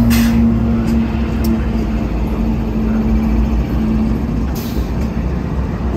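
Two GE diesel-electric locomotives, the second a Dash 9-44CW, rolling past close by: a heavy engine rumble with a steady hum that fades about four seconds in, and a few sharp clicks.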